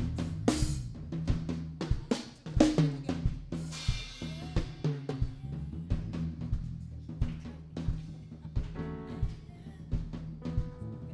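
Live church band playing an instrumental dance groove: a drum kit keeps a fast, steady beat of snare, kick and hi-hat over low held bass notes, with a cymbal crash about four seconds in.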